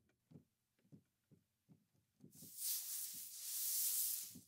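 Foley sample of a chiffon dress moving, played through a bandpass filter with its cutoff set very high. It comes in about halfway through as a thin, hissy fabric swish that swells toward the end. Before it come a few faint low thumps.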